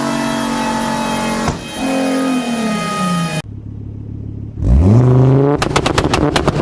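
Tuned car engine revving: a held note that falls away, then, after a cut, a sharp rev followed by a rapid string of exhaust pops and bangs near the end, the kind an anti-lag or two-step launch limiter produces.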